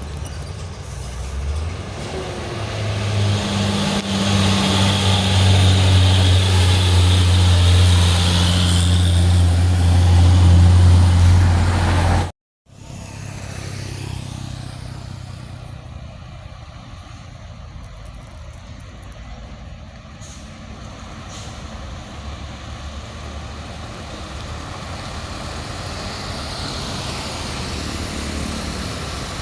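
A heavy truck's diesel engine running hard under load close by, a deep steady drone that grows louder for about ten seconds and then cuts off abruptly. After the cut there is quieter, steadier road traffic noise from vehicles further off.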